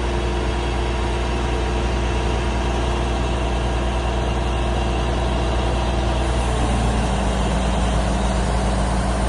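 Large engine running steadily at idle, its pitch shifting about six and a half seconds in as the engine speed changes.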